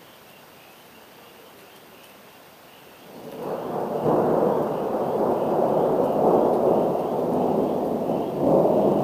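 Thunder rolling in: starts about three seconds in, swells within a second into a long, loud rumble, and surges again near the end.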